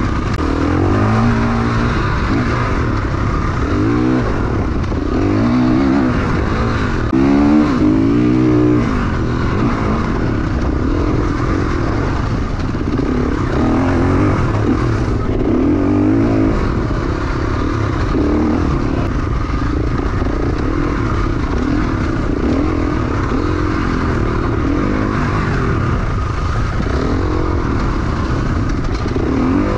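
Off-road enduro motorcycle engine revving up and down over and over as it is ridden along a dirt trail, over a steady rushing noise.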